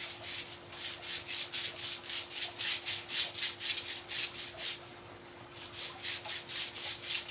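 Fast rhythmic rubbing strokes of a massage on a patient's body, about four to five strokes a second, with a short pause about five seconds in. A faint steady hum runs beneath.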